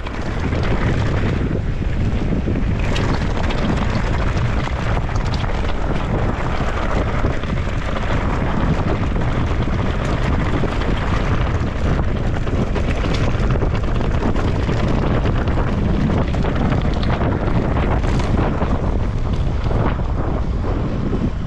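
Steady, loud wind buffeting on a bike-mounted or helmet camera microphone during a fast mountain-bike descent, with the rumble of tyres on rough ground and a few knocks from the bike.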